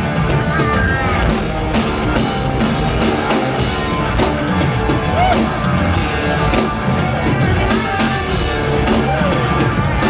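Live progressive rock band playing loudly: drum kit, double-neck bass, double-neck guitar and keyboards.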